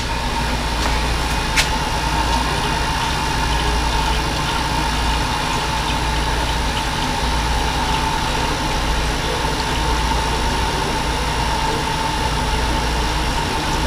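An engine idling: a steady, unchanging hum with a constant faint whine over it.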